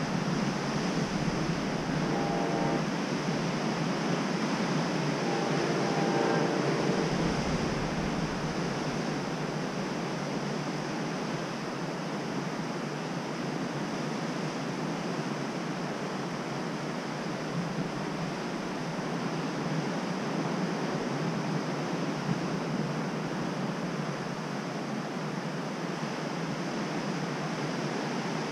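Ocean surf washing steadily onto a rocky beach, with two short pitched calls about two and six seconds in.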